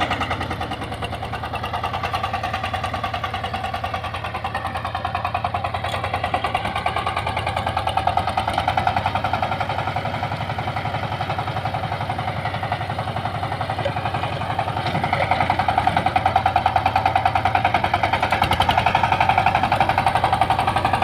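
Kirloskar Mega T12 power tiller's single-cylinder diesel engine running steadily while ploughing, with a rapid, even firing beat that grows a little louder in the last few seconds.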